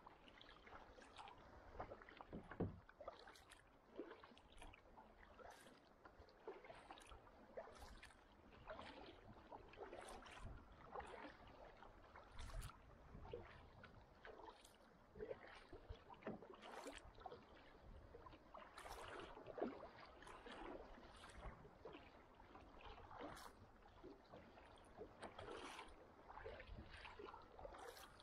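Kayak paddle dipping into the sea stroke after stroke: faint, irregular splashes and drips of water over a low wash of lapping water.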